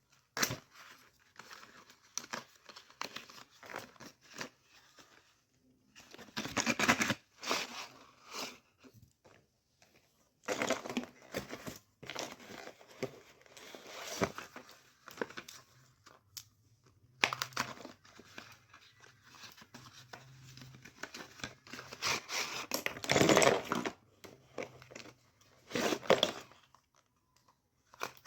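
Packaging being torn open and crinkled by hand, in irregular rustling bursts with short quiet gaps, the loudest coming every few seconds.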